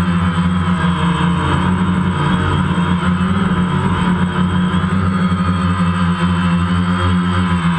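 DJI Phantom quadcopter's electric motors and propellers buzzing steadily and loudly, heard close up from the camera mounted on the drone. The whine wavers slightly in pitch as the motor speeds change in flight.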